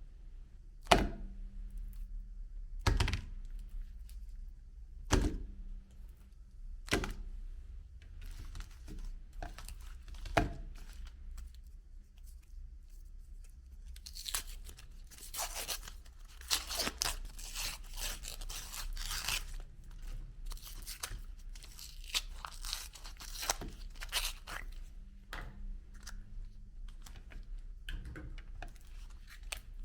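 Electric meat grinder running with a steady hum. A handful of sharp thunks come in the first ten seconds or so, then a long stretch of crackling, crunching noise as ice cream is forced through the grinder.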